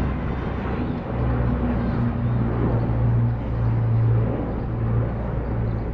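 Low, steady drone of a formation of military aircraft engines passing overhead, growing stronger about a second in.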